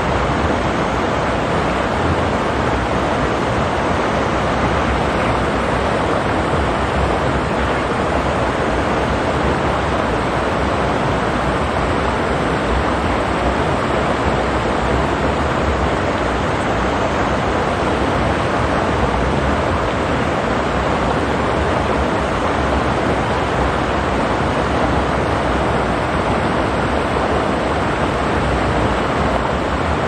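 Stream water rushing over rocks: a steady, even wash of noise with no breaks or changes.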